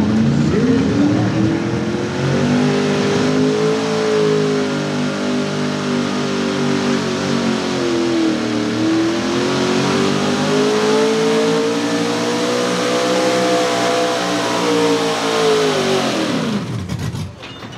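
Small-block V8 of a 4x4 pickup truck at full throttle under load, pulling a sled: the revs climb, sag briefly about halfway, climb again, then drop off sharply near the end as the pull finishes.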